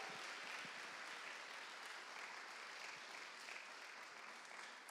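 Audience applauding in a hall, a steady wash of clapping that slowly fades.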